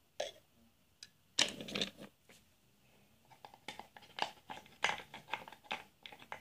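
Toy train engine and turntable being handled and turned, making plastic and wooden clicks and knocks: a short clatter about a second and a half in, then a run of quick taps and clicks through the second half.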